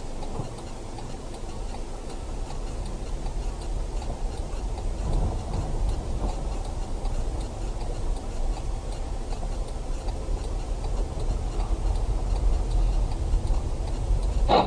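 Steady low rumble of vehicle and road noise with a faint regular ticking, and a short louder sound right at the end.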